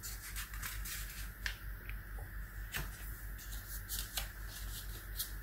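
A sheet of paper being folded in half and its crease pressed flat with the fingers: soft rustling with a few short, crisp crackles.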